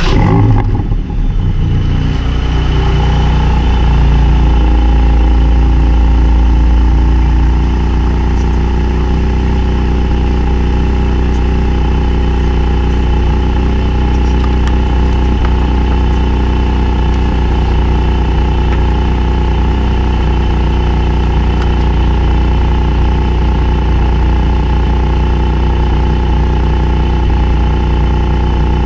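Porsche 718 Cayman GT4's 4.0-litre naturally aspirated flat-six firing up with a brief rev flare, then idling steadily, heard from inside the cabin. The idle settles a little lower about seven or eight seconds in.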